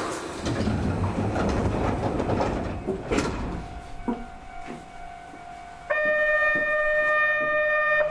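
Sangi Railway Hokusei Line 270-series narrow-gauge electric train at a station: a sudden loud rush of air-like noise for about three seconds, then scattered clicks over a faint steady tone. About six seconds in, a loud steady horn-like tone sounds for about two seconds and cuts off sharply.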